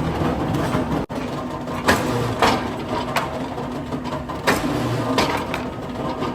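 Factory workshop noise: a steady machine hum under sharp knocks at irregular intervals, roughly one or two a second, with a brief break in the sound about a second in.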